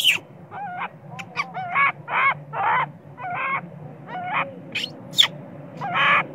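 Baby long-tailed macaque crying in a string of short, wavering calls, about two a second, with a few sharp high squeaks in a pause past the middle before the cries start again.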